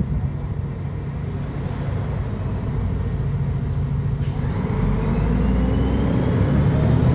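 Diesel engine of a Mercedes-Benz O500UDA bi-articulated bus with Voith automatic gearbox, running and building up under load: the sound grows steadily louder, and from about four seconds in a rising whine and a deeper rumble come in as the bus accelerates.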